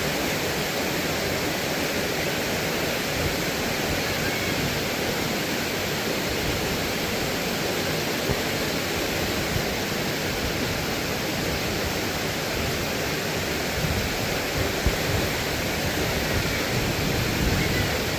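Waterfall rushing, a steady even noise of falling water, with a few faint low bumps near the end.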